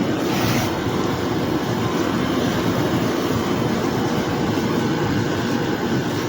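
TOSOT portable air conditioner running: a steady, loud hum of its fan and compressor.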